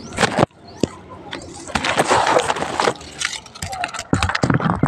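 Rustling and scraping of dry coconut leaves and midribs being worked with a bolo knife, with a run of sharp clicks and knocks throughout and a dense scraping stretch about two seconds in.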